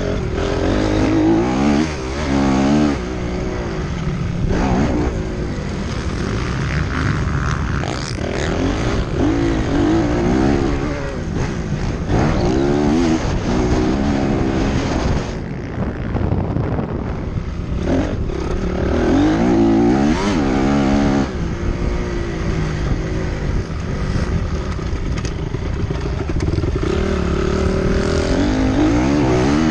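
Motocross dirt bike engine revving hard, its pitch rising and falling again and again as the throttle is opened and closed.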